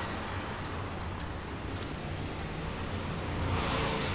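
Street traffic: a steady background of passing vehicles, with one vehicle going by close and growing louder near the end.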